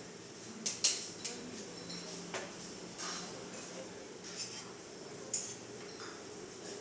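Cutlery clinking against a plate while eating, a handful of scattered sharp clinks over steady room noise.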